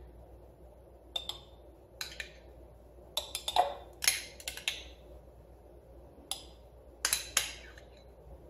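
A metal spoon clinking and scraping against a container and a glass jar as yogurt is spooned in: a scattering of short, sharp clinks and knocks, a second or so apart.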